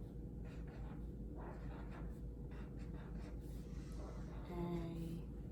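Writing on a paper chart: a run of short, scratchy strokes with small gaps between them.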